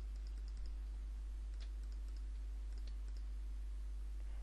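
Scattered computer mouse clicks while clone-stamping in Photoshop, a small cluster early on and a few single clicks later, over a steady low electrical hum.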